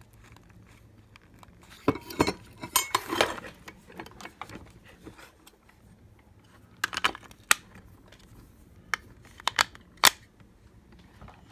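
Digital keypad deadbolt lock being handled and worked: scattered sharp clicks and short plastic-and-metal rattles in a few clusters.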